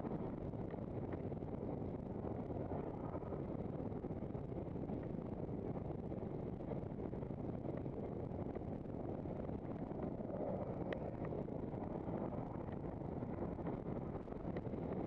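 Steady wind rush on a handcycle-mounted camera's microphone mixed with tyre rumble on asphalt while riding along a road, with a few faint clicks.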